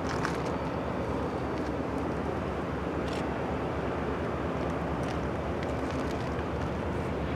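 Freight train rolling past, a steady rumble with a few faint clicks from the wheels.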